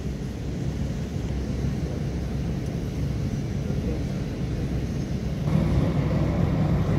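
Jet airliners taxiing on an airport apron: a steady low engine rumble. About five and a half seconds in it grows louder and deeper as a second airliner taxis close by.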